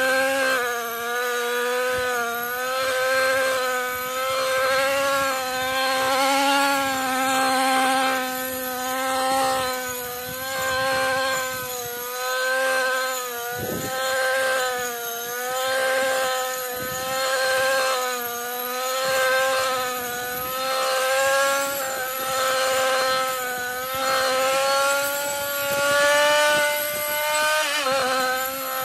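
Husqvarna 128R two-stroke petrol brushcutter running at high throttle and cutting, its pitch dipping and recovering as the loudness swells and falls about every two seconds.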